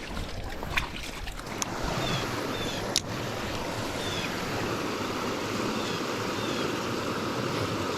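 Steady rush of a small creek's flowing water, with one sharp click about three seconds in and a few faint high chirps.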